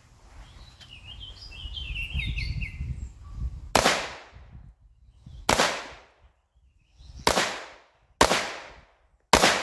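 A Zastava M84 Scorpion chambered in .32 ACP is fired semi-automatically: five sharp shots, one to two seconds apart, each ringing out briefly. A small bird chirps faintly before the first shot.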